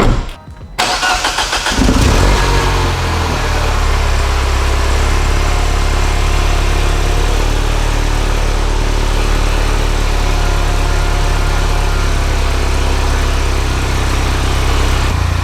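Mini Cooper S (R56) 1.6-litre turbocharged four-cylinder cold-started through a newly fitted downpipe: it catches about a second in, flares up, then settles into a steady idle. The owner hears an exhaust leak at the downpipe's V-band clamp in it.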